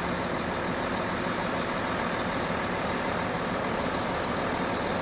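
MAN concrete mixer truck's diesel engine running steadily as the truck moves slowly.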